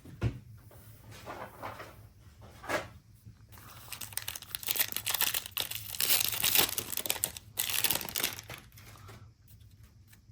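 A trading card pack's plastic wrapper being torn open and crinkled, with a dense stretch of crackling in the middle, after a single knock about a quarter of a second in.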